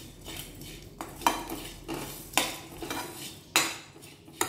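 A slotted steel spoon scraping and stirring dry-roasting yellow moong dal around a metal kadai, the dal grains rustling against the pan. Three sharp clanks about a second apart, as the spoon knocks the pan.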